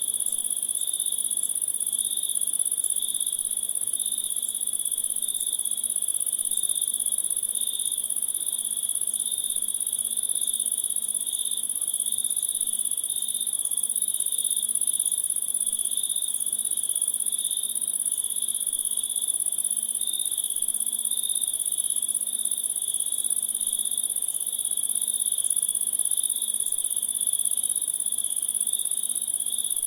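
Insects chirring in a steady dense chorus: one very high continuous trill over a lower, evenly pulsing one.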